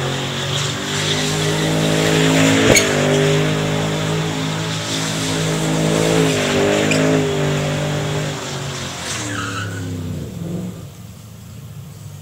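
Ford Mustang GT's V8 revving hard, its pitch rising and falling, while the rear tyres spin and squeal through drifting donuts, with one sharp crack about two and a half seconds in. Near the end the revs fall away and the sound drops off as the car eases out of the drift.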